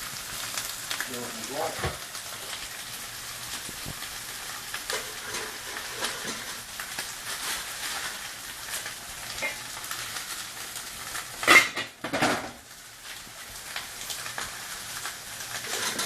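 Steaks searing in a smoking-hot pan, a steady sizzle with crackle and spitting, to brown the outside of meat already cooked sous vide. About three-quarters of the way through comes a brief, much louder burst of sizzle.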